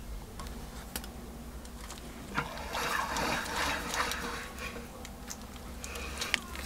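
Old cast-iron bench vise being closed on a wooden block and a metal spoon-lure blank, the blank being pressed into shape: a rough scraping and rattling stretch with clicks in the middle, then a few sharp metallic clicks near the end.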